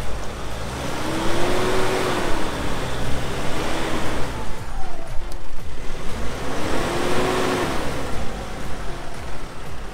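A 4x4 pickup's engine revving up and falling back twice as the truck works through a deep muddy rut under load, with a steady noise of tyres and mud underneath.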